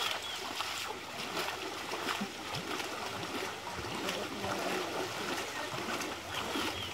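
Water splashing irregularly as netted fish thrash inside a seine net that men wading in a pond are drawing closed.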